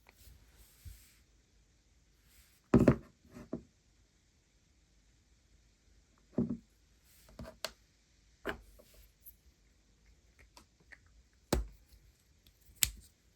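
Small objects being handled by hand, with scattered knocks and clicks. The loudest knocks come about three seconds in, around the middle, and twice near the end.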